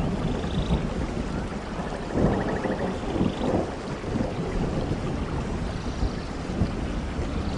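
Steady rain falling, with thunder rumbling low underneath and swelling around two to three seconds in.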